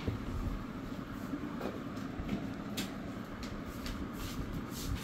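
Steady low rumble of background noise, with a few light clicks and taps as the phone is handled on its cardboard box.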